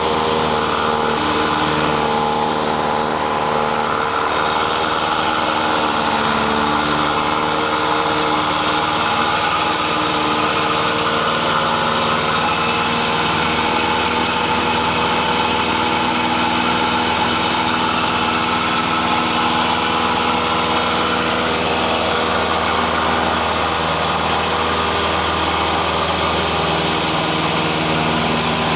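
Cessna light aircraft's piston engine and propeller running steadily, the engine note shifting slightly in pitch a few times.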